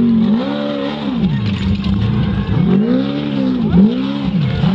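Off-road race vehicle's engine revving hard, its pitch rising and falling several times as the throttle is worked.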